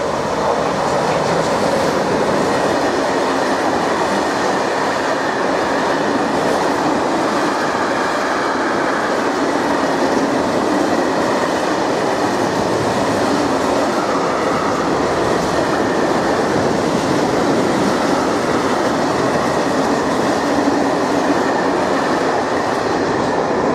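Freight train of high-sided open wagons rolling past at speed: a steady, loud noise of steel wheels on rail that holds at one level as the wagons go by.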